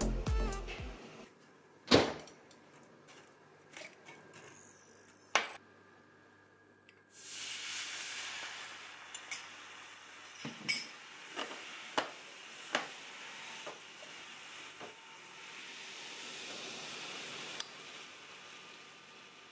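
A few sharp clinks of a metal spoon against a small glass bowl as a sauce is stirred. About seven seconds in, a soy-and-sake sauce starts bubbling and sizzling in a cast-iron skillet, a steady hiss with scattered pops as it boils to cook off the sake's alcohol.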